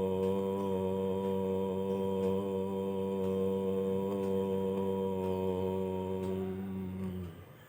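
A single long chanted Om in a low voice, held steady on one pitch. Near the end the sound closes into a hum and stops about seven seconds in.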